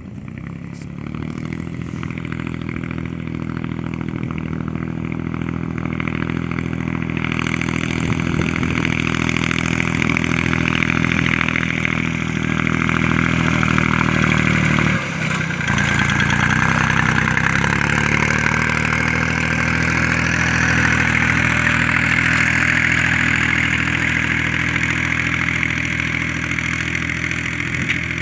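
Force Ox25 tractor's diesel engine running steadily under ploughing load, growing louder over the first several seconds. About halfway it briefly dips, then picks up again.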